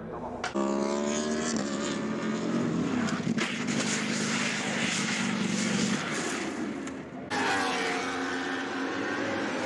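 Racing motorcycle engines at high revs, the sound changing abruptly from one bike to another: a rising rev about half a second in, a steady engine drone through the middle, and a fresh engine sound starting suddenly near the end.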